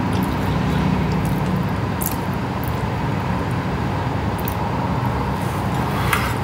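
Steady low background rumble with a faint hum, broken by a few small clicks about two seconds in and again near the end.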